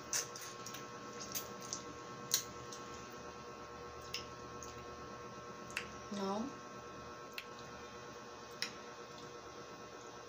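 Close-miked mouth sounds of a person sucking and biting lemon wedges: scattered wet clicks and smacks, with one brief hummed vocal sound about six seconds in. A faint steady electrical hum runs underneath.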